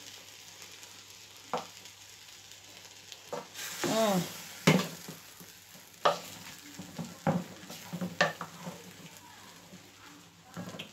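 A wooden spoon stirring jollof rice in a large metal pot on the stove, with a low sizzle from the cooking rice and scattered knocks of the spoon against the pot.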